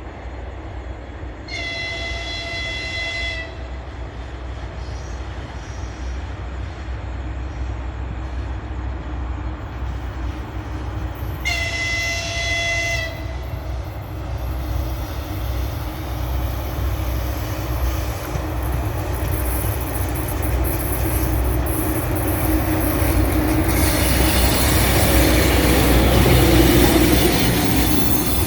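EP20 electric locomotive sounding its horn twice, two blasts of about two seconds some ten seconds apart, over a steady low rumble. The double-deck passenger train then pulls out with its wheels squealing and creaking, growing louder toward the end.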